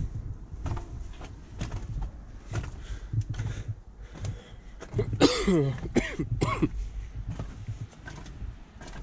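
Footfalls knocking on wooden deck boards, one every half second to a second, over a steady low rumble of wind on the microphone. About five seconds in, a man gives a wordless drawn-out vocal sound that falls in pitch, lasting about a second and a half.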